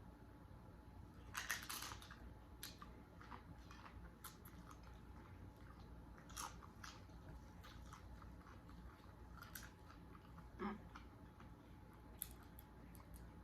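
Crunching of nacho tortilla chips being bitten and chewed, a string of crisp crunches with quieter chewing between; the loudest crunch comes about a second and a half in.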